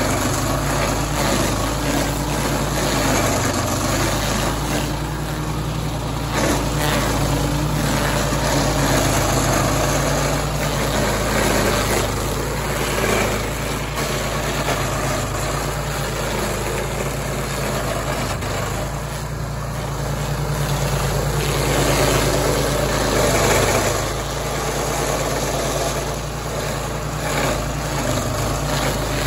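Walk-behind stump grinder at work: its small petrol engine runs steadily under load while the spinning cutter wheel grinds into the stump, throwing out wood chips and soil. The grinding eases briefly a couple of times as the wheel is swept across the cut.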